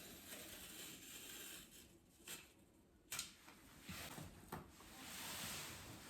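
Faint handling noises: a few light clicks and knocks, then a soft rustle near the end.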